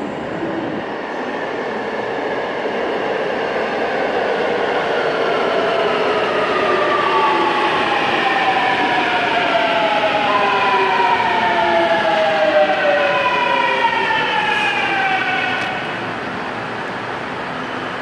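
Busan Metro Line 2 electric train pulling into a station and braking. The traction motors' whine, several tones together, falls steadily in pitch over the wheel and rail rumble, and cuts off suddenly about sixteen seconds in as the train slows.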